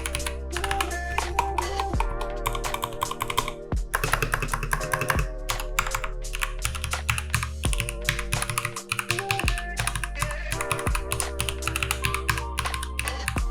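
Fast continuous typing on a Keychron K2v2 wireless mechanical keyboard, a rapid stream of key clicks, over background music with held notes and a bass line.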